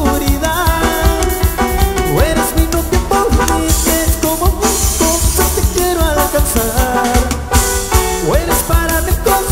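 Latin band music: a steady drum beat under bass and a melodic lead line with a few sliding notes.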